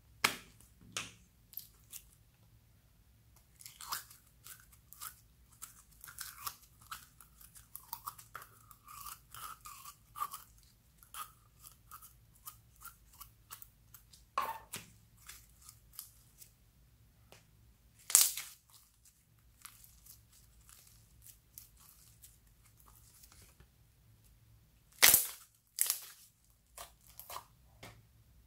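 Sticky slime crackling and squelching as it is squeezed out of a plastic toy container into a glass dish, with short squeaks partway through. A few sharp clicks and taps stand out, the loudest about 18 and 25 seconds in.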